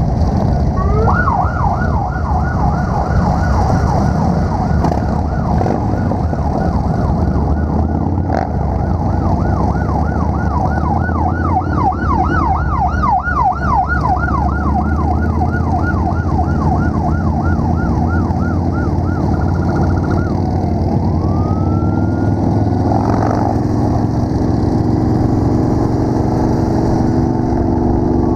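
Sheriff's escort siren yelping in fast rising-and-falling sweeps for about twenty seconds, stopping, then one slower rise a little later. Underneath, a group of touring motorcycles running along the road.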